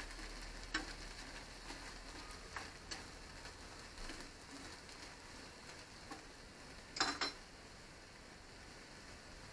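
Garlic scapes and small dried anchovies sizzling softly in a frying pan while wooden chopsticks stir them, clicking against the pan now and then. About seven seconds in comes a louder double clatter, after which the stirring stops and only a faint steady hiss remains.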